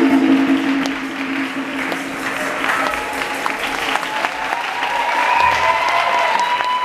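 Audience applauding and cheering at the end of a samba dance and conga drum performance, while the music's last held low note fades out in the first couple of seconds.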